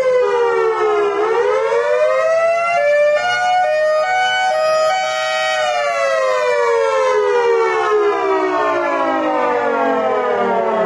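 Miniature 3D-printed Federal Signal Thunderbolt 1003 siren wailing, its horn rotating: the pitch dips in the first second, climbs for about four seconds, holds briefly, then slides steadily down for the rest.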